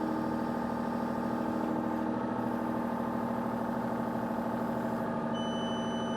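Excavator diesel engine running steadily at its low calibration speed of 1600 rpm during a boom lift cycle. About five seconds in, a steady high electronic tone from the onboard scale's monitor starts.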